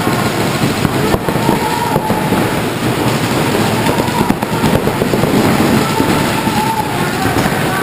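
Several paintball markers firing rapid, overlapping streams of shots at once: a dense, continuous crackle of pops.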